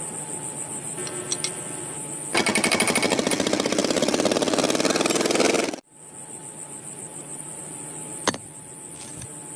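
Small motor of a DIY model machine whirring with a high whine; about two seconds in it breaks into a much louder rapid rattle that cuts off suddenly after a few seconds, then the quieter whir returns with a sharp click near the end.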